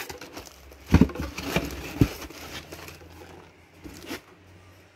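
Packaging being unpacked from a power-supply box: plastic bag and packing rustling and crinkling, with a couple of knocks about one and two seconds in as the boxed unit is handled.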